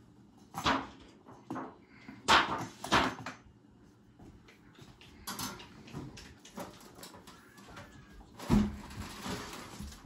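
Several sharp knocks and clunks, like objects being handled and set down, the loudest about two and a half to three seconds in and again near the end, with quieter ticks between.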